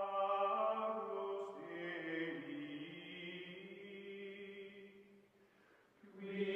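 Outro music: a slow chant of long held vocal notes. It fades away about five seconds in and swells back up near the end.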